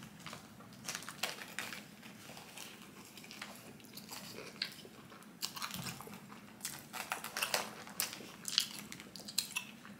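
A person biting into and chewing a toasted shawarma wrap, with a series of sharp crunches that come closer together in the second half, and rustling of its paper wrapper.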